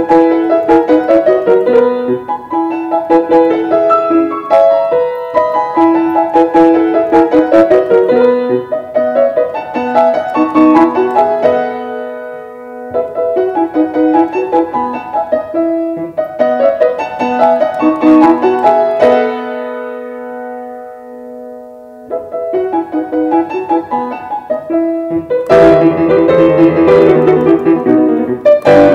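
Grand piano played solo in a classical style: a flowing line of notes, a held chord that dies away about twenty seconds in, then fuller, louder playing from about twenty-five seconds.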